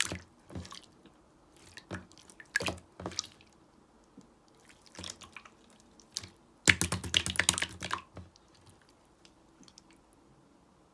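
Slime being squeezed and poked, giving scattered wet clicks and squishes, then a quick run of many small crackling pops for about a second.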